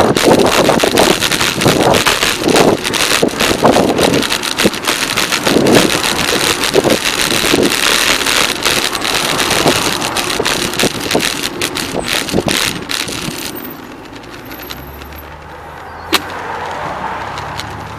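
Wind buffeting the microphone and clatter from a moving bicycle, with many small rattles. About fourteen seconds in it goes much quieter and a low steady hum comes in, with one sharp click shortly after.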